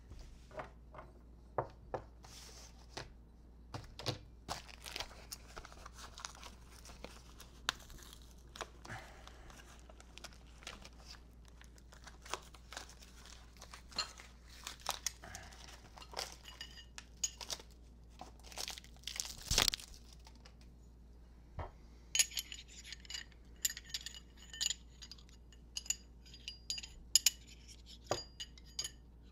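Plastic packaging crinkling and tearing as machined metal motorcycle riser and clamp parts are unwrapped and handled, with the parts knocking and clinking against each other and the table. Over the last several seconds the metal pieces ring with clear bell-like tones each time they clink together.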